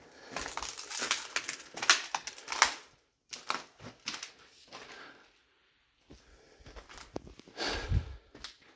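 Footsteps crunching and scraping over grit and debris on a hard floor, in irregular bursts with two short pauses.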